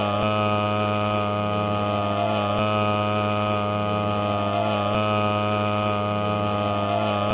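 A steady, buzzing hum-like drone with many overtones, with a slight wobble that comes back about every two and a half seconds.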